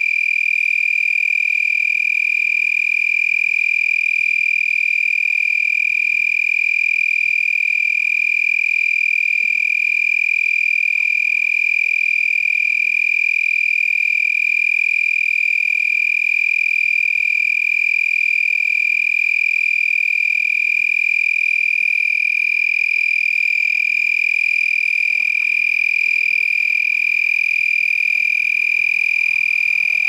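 Male tree cricket singing with its clear wings raised and vibrating: a steady, unbroken, high-pitched trill on one pitch, easily mistaken for a tree frog.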